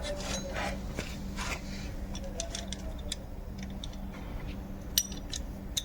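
Scattered, irregular metallic clicks and taps of hand tools working on a brake caliper's bolts, with one sharp click about five seconds in, over a steady low hum.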